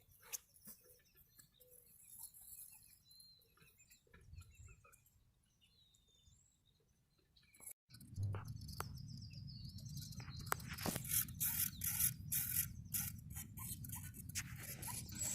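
Quiet outdoor ambience with a few faint chirps. From about eight seconds in, a steady low rumble of wind on the microphone sets in suddenly, with scattered clicks and rustles of handling.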